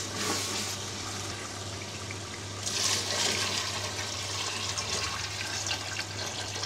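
Water pouring in a steady stream into a cooking pot of fried chickpeas and masala, louder about three seconds in, over a steady low hum.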